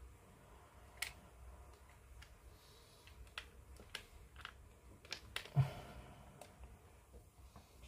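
Faint scattered clicks and taps of plastic model-kit fuselage halves being handled and pressed together, with one louder knock about five and a half seconds in.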